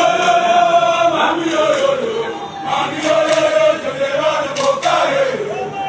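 A large group of soldiers singing or chanting in unison, a military-style song in long held notes, with phrases that fall in pitch at their ends.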